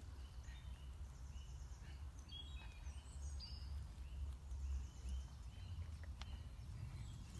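Woodland songbirds singing, with many short whistled notes and trills scattered through, over a steady low rumble.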